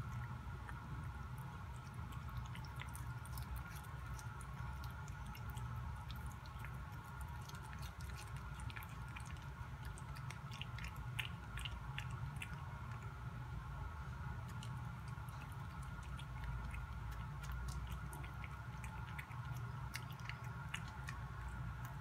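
A cat chewing pieces of shrimp, making small irregular clicks and smacks with its mouth, thickest about halfway through, over a steady low background hum.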